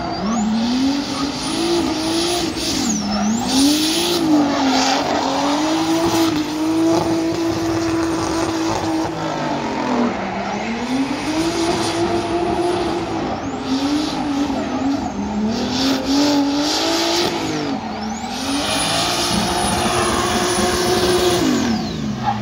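Drift car engine revving hard, its pitch dipping and climbing every second or two and holding high for stretches of several seconds. Under it runs continuous tyre squeal from the car sliding sideways.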